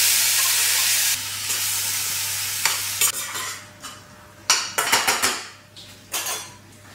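Chopped tomatoes hitting hot oil in a stainless steel frying pan: a loud sizzle that dies down over three or four seconds. A metal spoon scrapes and clinks against the pan as they are stirred.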